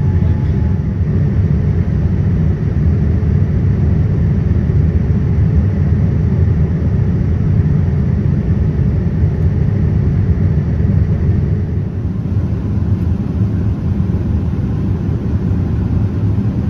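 Steady low rumble of jet engines and airflow heard inside a Boeing 787-9's cabin as it climbs after take-off. A faint, steady high whine sits over it and fades out about two thirds of the way through.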